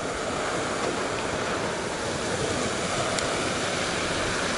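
Steady rushing noise of wind and water.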